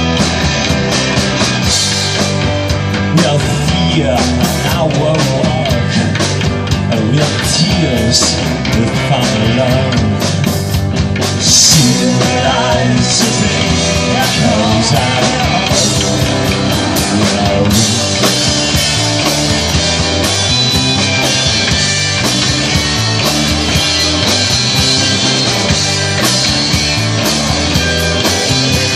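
Rock band playing loud and steady, live through amplifiers, with two electric guitars, electric bass and a drum kit.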